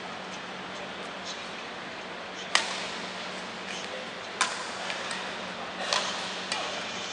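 Badminton rackets hitting a shuttlecock in a rally: four sharp smacks a second or two apart, the first, about two and a half seconds in, the loudest, over a steady hum.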